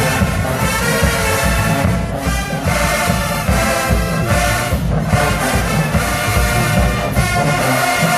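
Marching band playing live and loud: brass section sounding full chords that change every second or so, over steady bass and snare drums.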